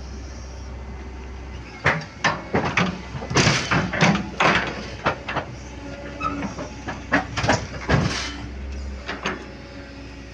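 Excavator's steel tracks clanking and knocking in a rapid, irregular run of sharp metal strikes as the machine climbs onto a trailer, over the steady low running of its diesel engine.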